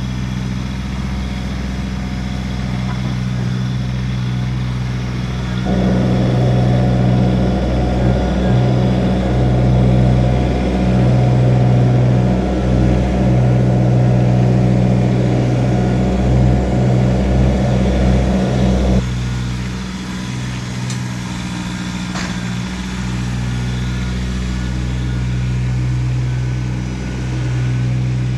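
Kubota BX1850 compact tractor's three-cylinder diesel running steadily. For about thirteen seconds in the middle a louder, rougher noise joins it, then cuts off and the engine carries on as before.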